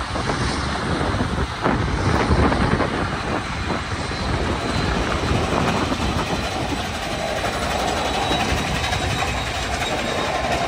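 Canadian Pacific 2816's steam excursion train rolling past, its wheels clacking over the rail joints in a steady, dense rumble.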